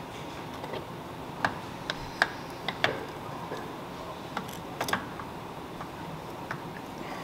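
Light, scattered metal clicks and taps as a Screaming Eagle 131 piston, with its rings fitted, is handled and set onto the connecting rod between the cylinder studs. The clicks are irregular, with the sharpest about two and about five seconds in, over a faint steady hum of the shop.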